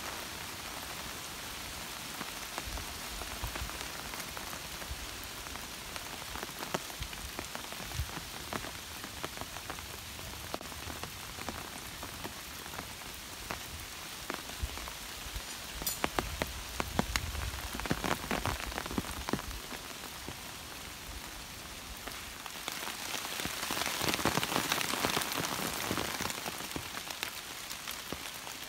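Steady rain falling, with many sharp drop hits close by. It swells louder for a few seconds near the end.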